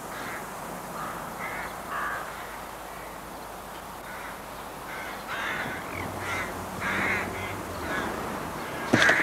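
Harsh bird calls repeating at uneven intervals, more of them close together in the second half, with a sharp knock near the end.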